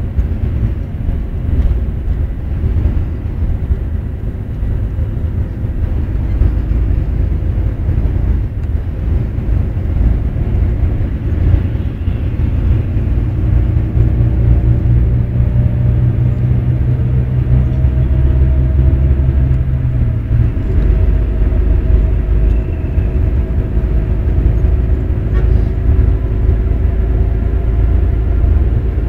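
Moving bus heard from inside the cabin: a steady low engine and road rumble, with an engine drone coming through more clearly in the second half.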